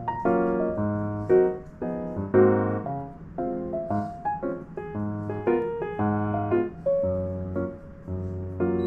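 Background music led by piano-like keyboard notes over a repeating bass line.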